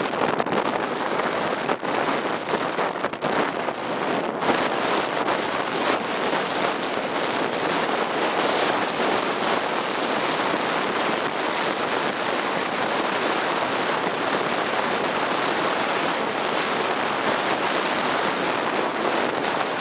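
Strong wind blasting the microphone on a ferry under way in rough, snowy weather: a loud, steady rushing noise, with a few sharp buffeting knocks in the first few seconds.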